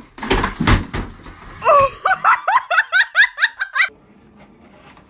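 A person laughing: a couple of breathy bursts, then a quick run of short, high-pitched 'ha' sounds that stops about four seconds in.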